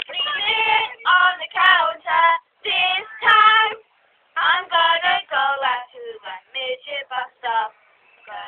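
A girl singing unaccompanied in short sung phrases, with a brief pause about four seconds in.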